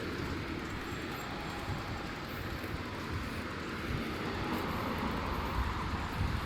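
Steady outdoor ambience: a low, uneven rumble of wind on the microphone over an even hiss.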